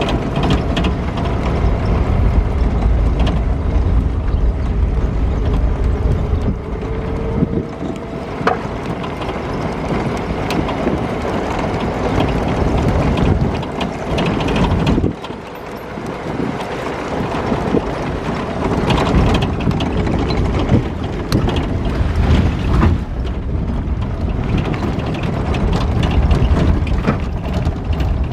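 Inside the cab of an old car driving over a rough gravel track: steady low rumble of engine and tyres, with constant rattling and clattering from the body and suspension.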